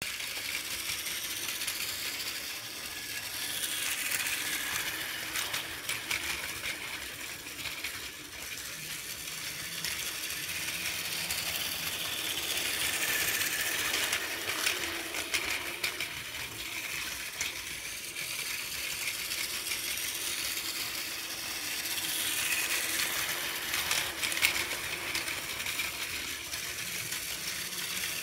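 Plarail battery-powered toy trains running on plastic track: a steady small-motor whine with rapid clicking of the wheels over the track joints. It swells and fades three times as a train passes close by.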